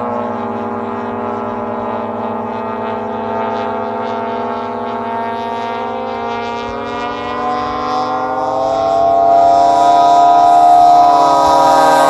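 Engines of several giant-scale radio-controlled model airplanes running in flight, overlapping drones whose pitches drift up and down. The sound grows louder from about eight seconds in as one plane comes closer.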